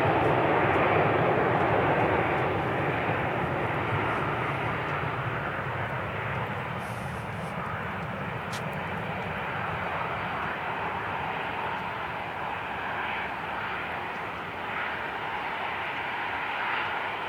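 Airliner engine noise, loudest at the start and easing off over the first few seconds, then holding at a steady lower level.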